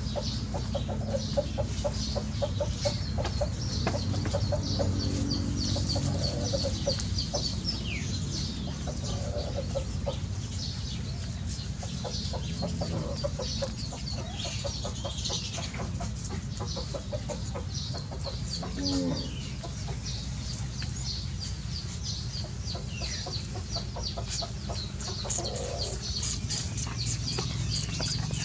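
Chickens clucking in a steady chatter of short repeated calls, with a few thin, high, falling cheeps among them.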